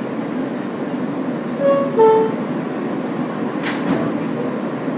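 Steady hum of an R160 subway car standing at a station, with its two-note door chime sounding about two seconds in, a higher note then a lower one. A brief knock follows near the end, typical of the doors starting to close.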